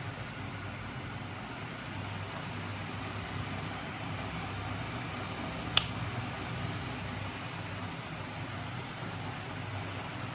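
Steady hum of the magnet engine's small 12 V electric motor driving its flywheel and crankshaft. One sharp click just past the middle comes as the multimeter's rotary dial is turned.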